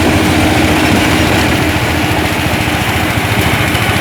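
Rice combine harvester's engine running steadily, with a fast, even pulse and a steady hum that fades about three quarters of the way through.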